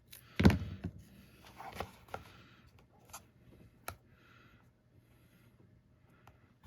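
Paper and card being handled on a craft table: a thump about half a second in, then rustling, a few sharp taps and a brief soft scrape as small paper pieces are placed on a paper box.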